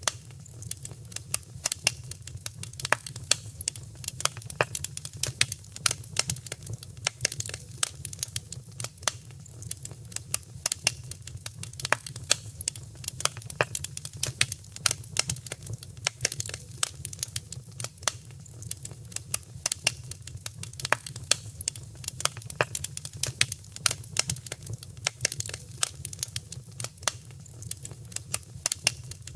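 Wood fire crackling: irregular sharp pops and snaps, many each second, over a steady low rumble of the burning fire.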